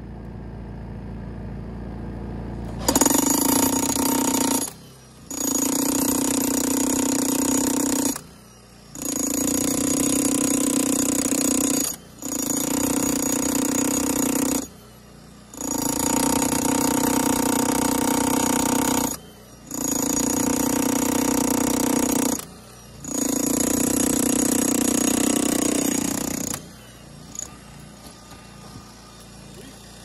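Hilti TE 2000-AVR electric demolition hammer chiselling into a concrete slab. It runs in seven bursts of a few seconds each with short pauses between them, starting about three seconds in and stopping a few seconds before the end. It is powered by a WEN 3800-watt portable generator that it loads heavily but runs successfully.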